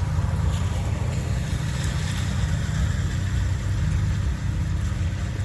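Steady low rumble of a vehicle engine running at idle.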